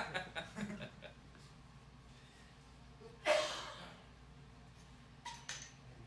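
Mostly quiet room tone. A man's voice trails off in the first second, a single short, sharp vocal burst comes about three seconds in, and two brief faint sounds follow near the end.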